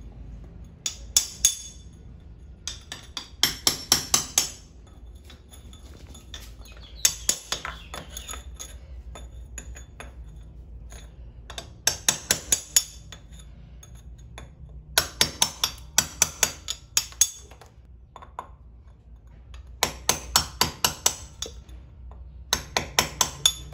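Hammer striking a chisel to cut a round hole in the wall, in quick bursts of several ringing blows, about four a second, with pauses between the bursts.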